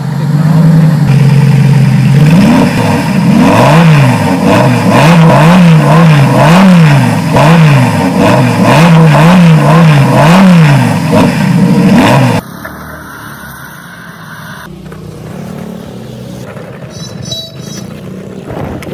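A car engine revving, its pitch rising and falling in about a dozen quick blips. About twelve seconds in it cuts off abruptly to a much quieter, steady running sound.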